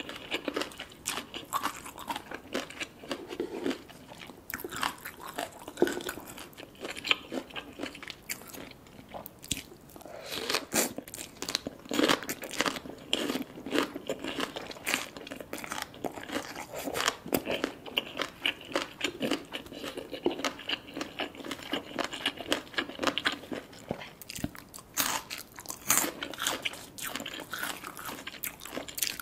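Close-miked crunching and chewing of spicy Thai green papaya salad eaten by hand, with many irregular crisp crunches.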